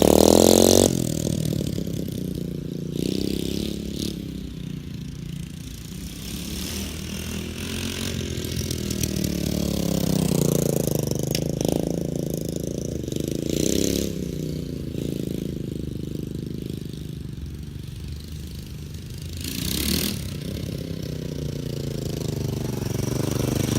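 Lifan 125cc single-cylinder four-stroke engine of a small minibike being ridden, its pitch climbing as it revs up and dropping back several times, as with throttle changes and gear shifts.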